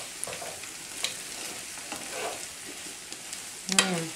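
Canned corn frying in a skillet: a steady sizzle, with a spoon stirring and scraping through it and clicking on the pan a few times. Near the end, a short low hum that falls slightly in pitch.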